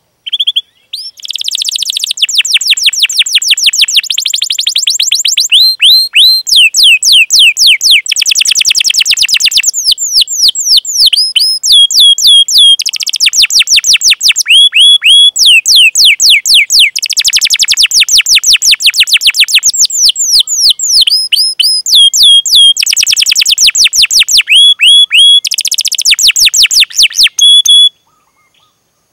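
Domestic canary singing in full voice: long passages of very fast, dense trills alternating with runs of quick down-slurred chirps, broken by short pauses, stopping about a second before the end.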